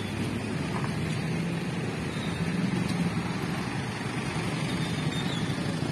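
Road traffic: a car and a light van driving slowly past close by, their engines running steadily.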